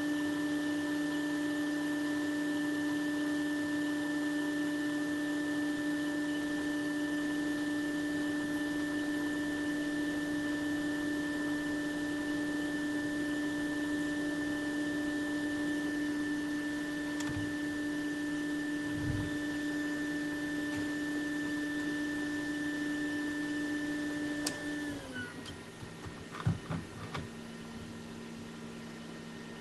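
A small electric motor or blower on the workbench running with a steady whining hum; about 25 seconds in its pitch drops and it turns quieter, followed by a few light clicks.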